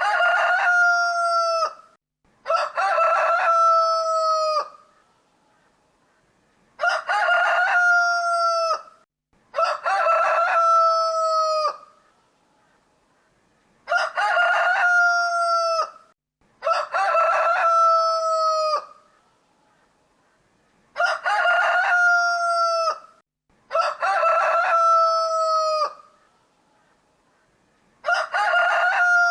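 Rooster crowing again and again: nine cock-a-doodle-doos of about two seconds each, coming in evenly spaced pairs, each crow holding its pitch and falling away at the end.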